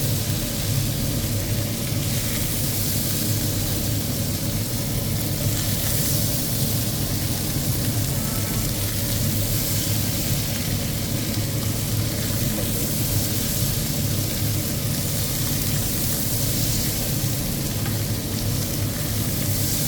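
Meat sizzling and frying as it is tumbled in an automatic stir-fry machine, a steady hiss rising and falling softly, over a constant low drone from the running machine.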